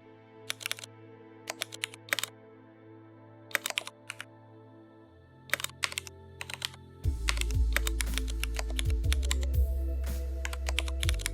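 Computer keyboard typing in short bursts of keystrokes, over background music. About seven seconds in, the music turns much louder with a heavy bass.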